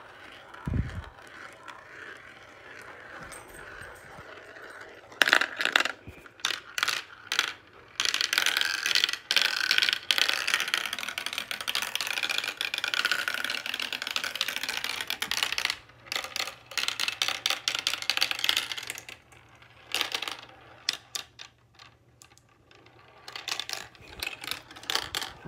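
Marbles rolling and clattering through a plastic marble run's tubes and chutes. A few scattered clicks come about five seconds in, then a dense rattle lasting about ten seconds, then a few more clacks near the end.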